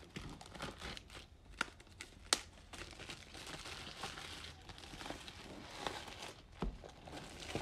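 Thin plastic shrink-wrap film being peeled and crumpled off a cardboard box: a continuous crackling crinkle with a few sharp snaps, the sharpest a little over two seconds in.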